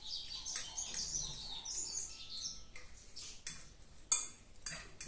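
Metal fork mashing a ripe banana in a ceramic bowl: a few irregular scrapes and taps against the bowl. Birds chirp in the background in the first half.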